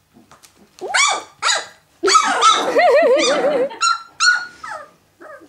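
Puppies yelping and whining: two short high yelps about a second in, then nearly two seconds of overlapping wavering whines and yelps, and two more yelps near the end. Taken by the owner as a sign they are still hungry.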